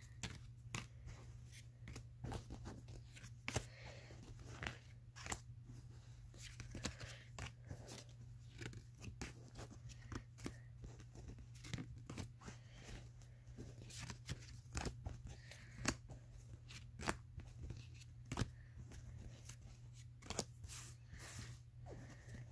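Pokémon trading cards being handled and flipped through one at a time, making irregular faint sharp card snaps and rustles, a couple a second at most, over a steady low hum.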